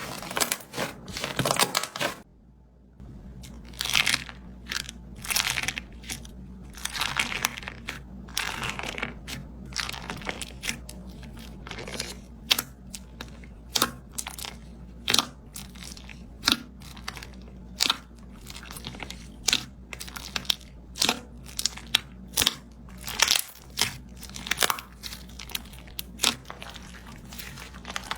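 Slime being pressed and pulled, giving short crackling pops at irregular intervals, roughly one or two a second, after a brief lull about two seconds in.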